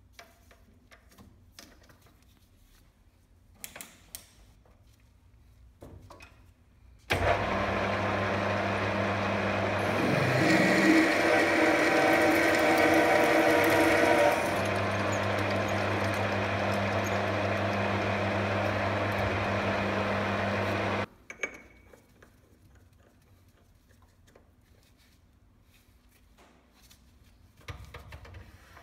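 Small metal lathe switched on about a quarter in, its motor and spindle running with a steady hum. For about four seconds a louder gritty grinding joins it as the tip of a 10 mm drill bit, held in the tailstock chuck, is pressed against the spinning centre to sharpen it. The lathe is switched off about two-thirds through, with light metallic clicks of handling before and after.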